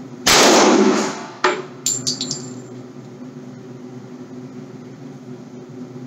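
Two gunshots on an indoor range about a second apart, the first loud with a long echo off the range walls, followed by a few light metallic clinks of spent casings falling.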